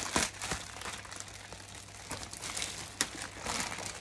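Clear plastic wrapping crinkling and rustling in irregular bursts as it is handled and pulled around a large beach bag, loudest near the start.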